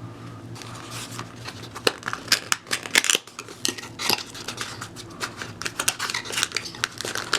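Hard plastic cordless-tool batteries and their packaging being handled, giving irregular clicks, taps and clatters over a faint steady hum.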